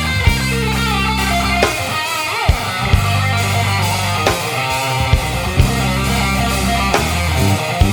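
Blues music: an electric guitar lead with string bends over bass and drums.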